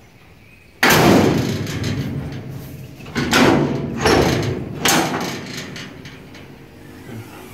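The steel hood of a 1966 Ford Bronco comes down and slams shut about a second in, pulled down hard at the end of its travel by its new hood struts, and the slam rings off. Three more loud clunks follow as the hood is released and raised again on the struts.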